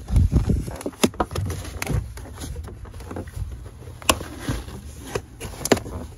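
Car floor carpet being pulled up by hand from the door sill: rustling and handling noise, with low thumps at the start and a few sharp clicks.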